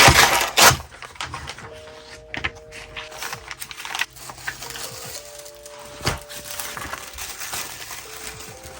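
Art-journal crafting sounds of paper and tools being handled: a loud rustle at the start, then scattered light taps and clicks, over soft background music.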